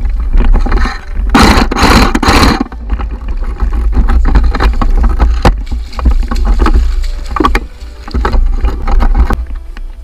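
Footsteps splashing and sloshing through a shallow stream, loudest in a run of three heavy splashes about one and a half seconds in, over a steady low rumble from wind and handling on a body-worn camera.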